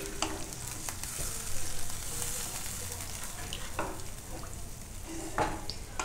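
A spatula stirring watery green-onion and tomato gravy in a kadai over a gas flame: scattered scrapes and taps of the spatula against the pan over a steady hiss of the heating liquid.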